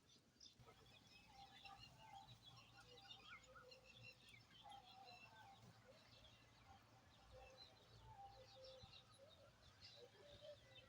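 Faint chorus of many small birds chirping and warbling, with a low steady hum underneath.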